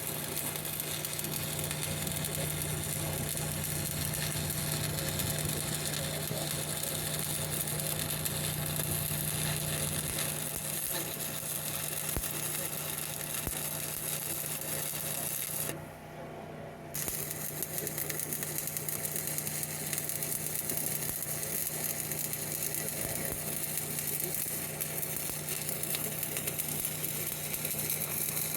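Stick-welding arc crackling and sizzling steadily as a 7018 rod caps a repaired weld, over the steady hum of an engine-driven welder. The arc breaks off for about a second just past the middle, then strikes again.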